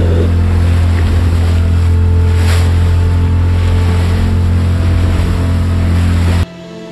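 Boat engine running with a steady low hum, with wind and water rushing; it cuts off suddenly about six and a half seconds in.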